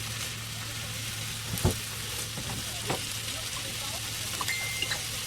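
Carrots and cabbage frying with soy sauce in an electric skillet, a steady sizzle. A utensil knocks against the pan twice while stirring, and a short high tone sounds near the end.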